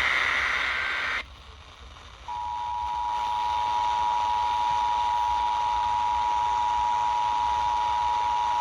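Emergency Alert System tones over a steady hiss. A screechy SAME header data burst ends about a second in. After a short gap, the steady two-tone EAS attention signal starts a little after two seconds and holds.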